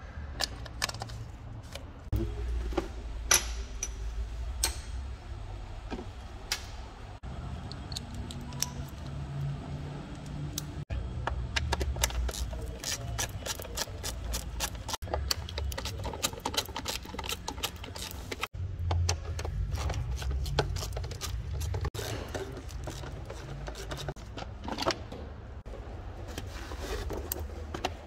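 Hands and a tool working on plastic engine-bay parts: many scattered clicks, taps and rattles of clips, caps and covers, over a low rumble.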